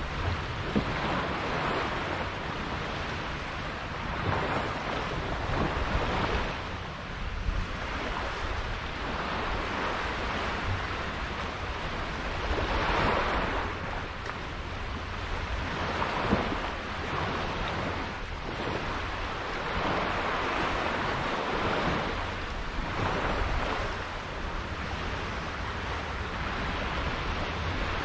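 Water rushing and washing past a sailing boat in surges every couple of seconds, with wind buffeting the microphone as a low rumble underneath.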